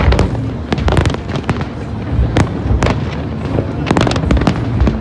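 Aerial fireworks shells bursting in a rapid series of sharp bangs, several a second, over a continuous low rumble.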